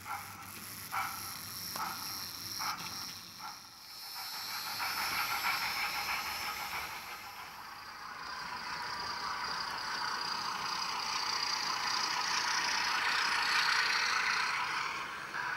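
Train-Tech SFX10 steam sound unit in a 00 gauge model train, playing tinny steam-locomotive chuffs through its small speaker. The chuffs start spaced, a little over one a second, then about four seconds in quicken into a continuous rushing hiss as the model picks up speed.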